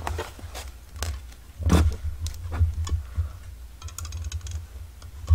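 Irregular light taps and clicks from hand tools and paper being handled while stitching holes are pierced in a soft-cover junk journal's spine. A louder knock comes a little under two seconds in, and a brief papery crackle follows a couple of seconds later.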